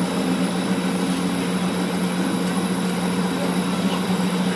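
A steady machine running with a constant low hum over a noisy whir.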